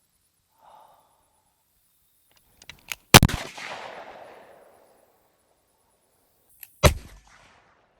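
Two gunshots about three and a half seconds apart. The first has a long echoing tail and the second dies away sooner, and a few faint clicks come just before each shot.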